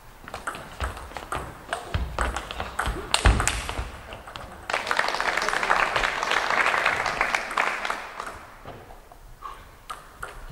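Table tennis rally: the celluloid-type ping-pong ball clicking back and forth off the bats and table for about four seconds, the hardest hit near the end of the rally. Then applause from the crowd breaks out suddenly and dies away after about three seconds, with a few more ball clicks near the end.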